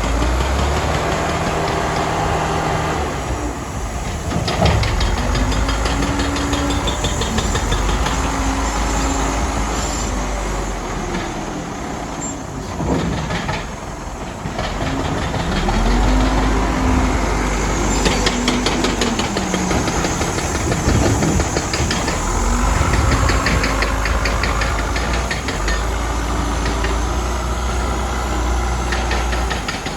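Diesel engines of heavy earthmoving machinery at work, revving up and easing off several times.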